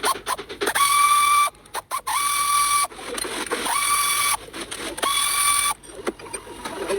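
Small power-tool motor whining in four short bursts of just under a second, spinning up at the start of a burst, with ratchet-like clicking between the bursts.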